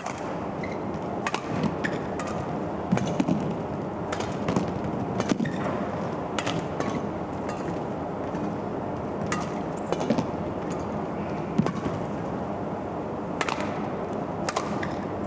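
Badminton rackets striking a shuttlecock back and forth in a long rally, sharp hits every second or two, over a steady murmur of arena crowd noise.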